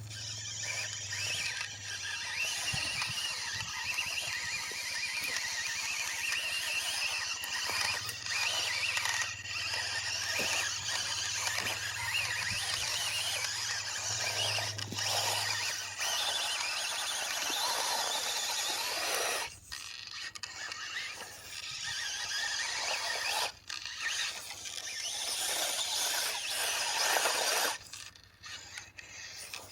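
FMS FCX24 1/24-scale RC crawler's small electric motor and geartrain whining as it crawls through loose dirt, with the tyres scraping in the soil. The whine cuts out briefly a few times in the second half as the throttle is let off.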